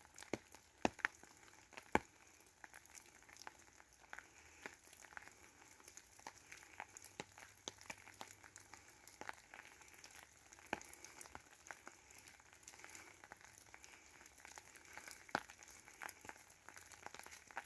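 Light rain pattering faintly on an umbrella just above the phone: irregular sharp ticks of single drops, several a second, over a soft hiss.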